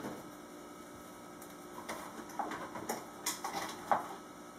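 Scattered light clicks and taps from utensils and containers being handled while soap colourant is prepared. They come a few at a time from about a second and a half in and stop before the end.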